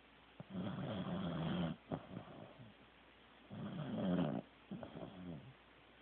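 A corgi snoring in its sleep: two long snores about three seconds apart, each followed by a shorter, softer breath.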